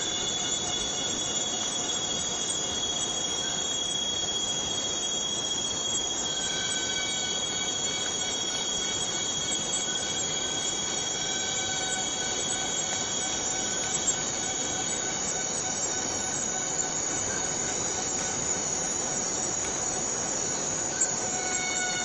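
Borneo rainforest cicadas droning in a steady, dense chorus, with several high held tones fading in and out over it. Two faint ticks, one near the middle and one near the end.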